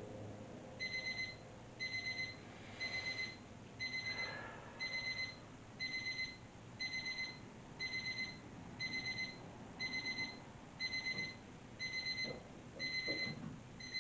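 Digital timer alarm going off, signalling that the timed vertical leg-stretch hold is up. It gives a quick burst of about four high beeps, repeated about once a second, starting about a second in.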